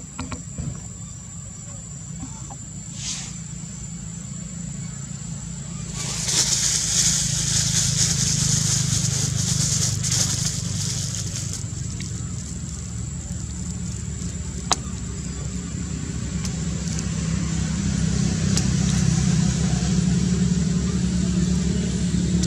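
A motor vehicle engine running low and steady, growing louder toward the end, over a constant high-pitched insect whine. A loud hiss comes in about six seconds in and fades away after about eleven seconds.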